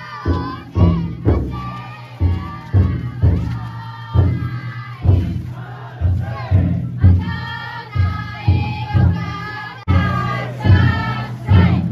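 The big taiko drum inside a futon daiko float struck in repeated heavy beats, with a crowd of bearers chanting and shouting together over it.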